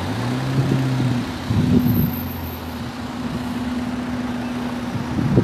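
Cars and a small van driving slowly past at close range in a queue around a roundabout, their engines giving a steady low hum over tyre and road noise.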